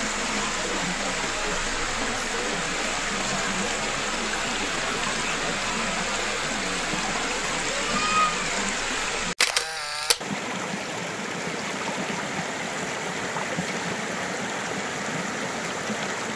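Shallow rocky mountain creek rushing and gurgling over stones, a steady rush of water close to the microphone. The rush cuts out for a moment with a click about nine seconds in, then carries on.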